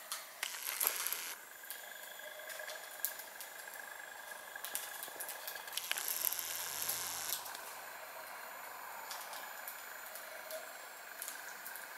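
Gouldian finches pecking and husking seed in a plastic feeding dish: irregular small clicks and taps of beaks on seed and dish, with two brief rustles, about a second in and again about six seconds in.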